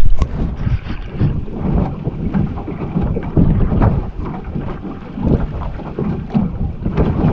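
Wind buffeting the microphone in uneven gusts, with small waves lapping and slapping against the hull of a small open boat.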